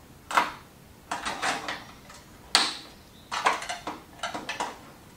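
Flathead screwdriver prying a plastic fluorescent-tube lampholder (tombstone) out of a sheet-metal light fixture: an uneven run of sharp clicks and scrapes as the blade is wedged and twisted.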